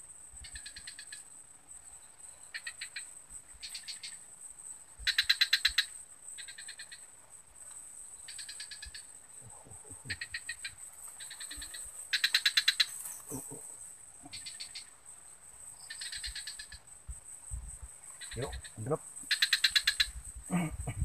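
Wild animals calling by a pond: short rapid trills repeat every second or two, three of them much louder, over a steady very high-pitched whine. A few brief low sliding sounds come near the end.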